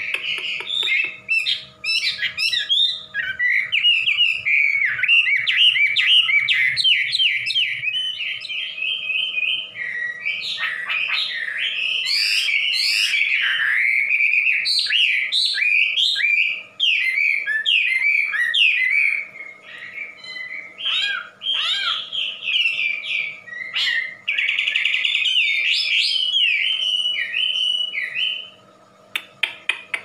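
Chinese hwamei (wambi) singing a loud, rapid, nearly unbroken song of varied whistles, slurs and trills, with a few short pauses. The song stops shortly before the end.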